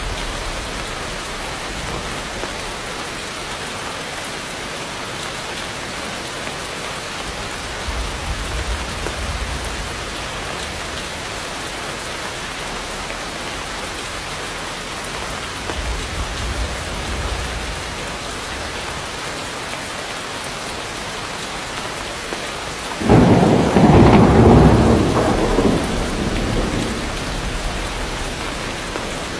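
Heavy rain falling steadily on dense forest foliage, with faint low thunder rumbles. Near the end a sudden loud clap of thunder breaks out and rumbles away over a few seconds.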